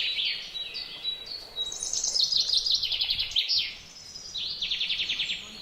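A songbird singing a fast, varied song of high chirps and rapid trills, with two quick trilled runs in the second half.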